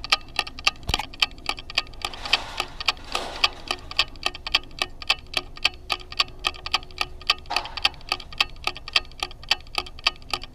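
Rapid, evenly spaced mechanical clicking, about five clicks a second, with faint murmuring behind it.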